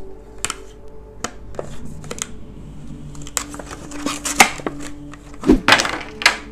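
Clear plastic blister packaging and a cardboard insert being handled and pulled apart: a run of crinkles and sharp clicks, loudest about four and a half seconds in and again near the end.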